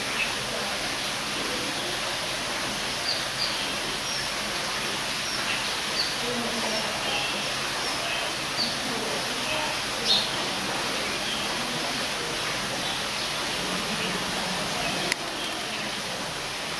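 Small birds giving short, high chirps here and there over a steady background hiss, with a sharp click near the end.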